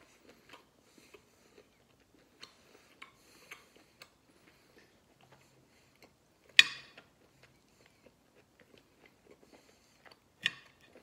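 A person chewing a tough piece of beef, with faint wet clicks and mouth noises. A sharp clack comes about six and a half seconds in and a smaller one near the end.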